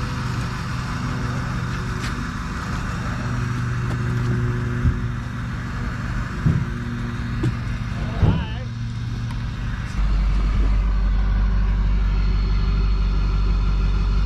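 A vehicle engine runs steadily with a low hum. About ten seconds in, a deeper, louder rumble sets in.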